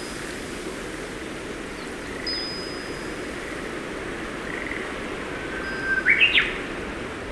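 Birds calling over steadily running water: a thin, high, level whistle about two seconds in, and near the end a louder call that climbs in quick steps.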